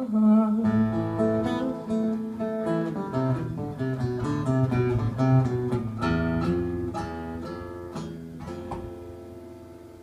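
Two acoustic guitars playing a song's instrumental ending, picked notes and strums with no singing, dying away over the last few seconds.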